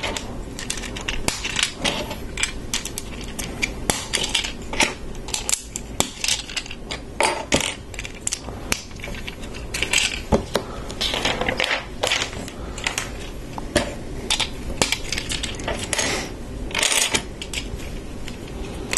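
LEGO plastic pieces clicking and rattling under the hands as plates are pressed onto a train car's baseplate: an irregular run of small clicks with short rustles and scrapes.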